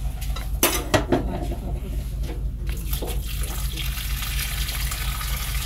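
A few clattering knocks of pot and dishes about a second in. Then, from about three seconds in, water runs steadily from a tap into a pot over boiled saltfish to cool it.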